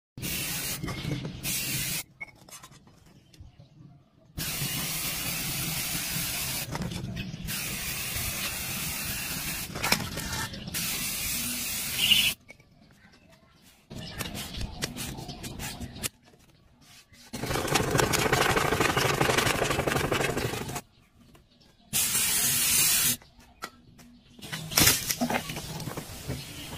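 Aerosol spray-paint cans hissing in long on-and-off bursts, several seconds each, with quiet gaps between. The loudest, fullest hiss comes a little past the middle.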